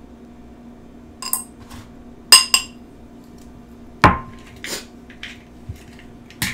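Glass bowls and kitchen utensils clinking and knocking as they are set down and moved about on a table. A run of separate sharp clinks begins about a second in; the loudest, about two seconds in, rings briefly, and a heavier knock follows near the middle.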